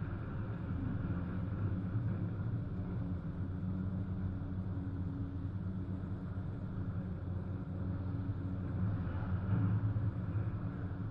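Diesel engines of hydraulic demolition excavators running, a steady low drone with a slight swell in loudness about nine seconds in.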